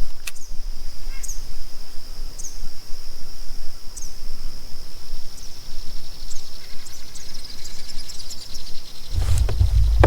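A bird repeating a short, high, falling chirp about once a second over a steady high-pitched whine.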